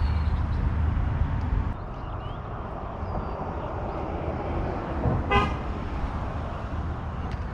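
A car passing by with a low rumble, giving one short toot of its horn about five seconds in.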